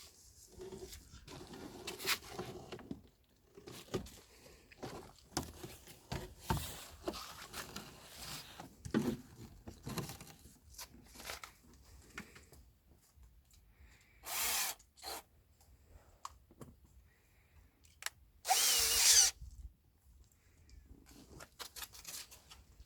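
Cordless drill/driver running in two short bursts, the second longer with its motor pitch wavering, amid scattered clicks and knocks of tools and parts being handled while a car's door check is taken apart.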